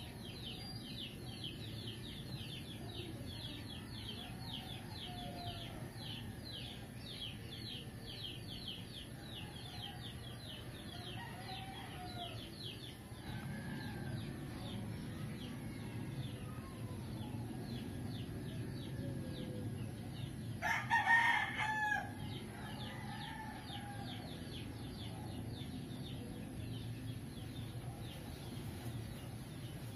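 A rooster crowing once, briefly, about two-thirds of the way through, over a fast high-pitched chirping that repeats several times a second and a steady low hum.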